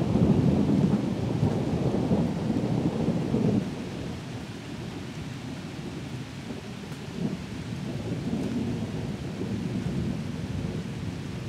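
Thunder rumbling over steady rain, loudest in the first few seconds, then dropping away about three and a half seconds in to a quieter, lingering low rumble.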